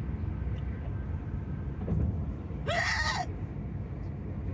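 A woman's loud hiccup, one short voiced yelp about three seconds in, among the constant hiccups and burps she cannot stop, over the steady low rumble of a car driving on the highway.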